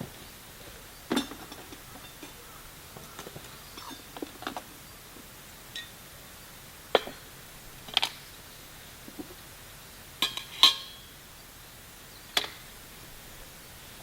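A few sharp clinks and knocks of hard objects being handled, at irregular intervals, the loudest a quick pair about ten and a half seconds in.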